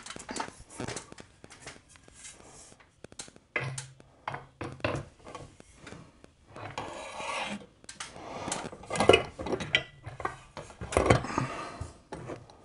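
Curtain rod rubbing, scraping and knocking against its wall brackets as it is set up and seated in them. The knocks and scrapes come irregularly, loudest about nine and eleven seconds in.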